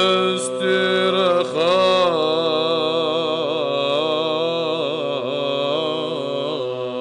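Solo male Byzantine chant in Arabic, in the sixth tone. One long melismatic phrase with quick ornamental turns is sung over a steady held drone note (ison).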